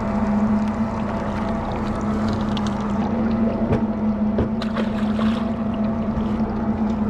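Mercury outboard motor idling steadily under a boat, a constant hum. A few short clicks come about halfway through.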